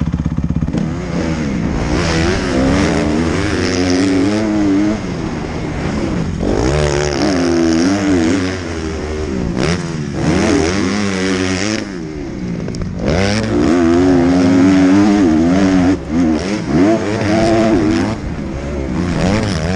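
Dirt bike engine revving up and down again and again as the rider opens and closes the throttle and shifts while riding over rough dirt, heard close up from a helmet-mounted camera.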